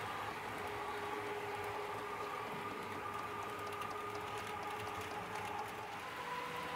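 H0 model of a Lufthansa Airport Express BR 403 electric multiple unit running on model track: a steady electric whine in two tones over a soft running hiss with faint clicks. The tones shift in pitch about six seconds in.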